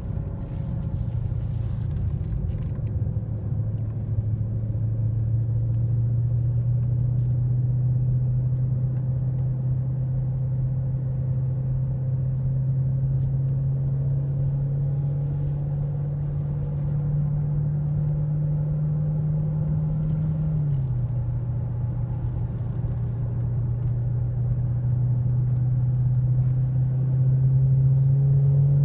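Supercharged 6.2-litre Hemi V8 of a 2015 Dodge Charger SRT Hellcat heard from inside the cabin, droning at moderate revs. Its pitch creeps slowly upward, drops sharply about twenty seconds in, then climbs again near the end.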